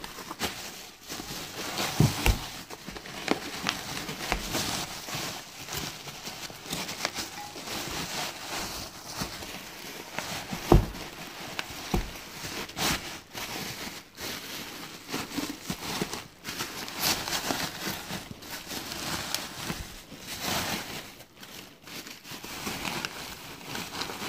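Bubble wrap rustling and crinkling as it is pulled away by hand from a cast-metal train horn manifold, with scattered small crackles and a sharp knock near the middle.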